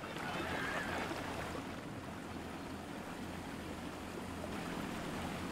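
Small flat-bottomed boat underway: a steady low motor drone under the rush of water along the hull.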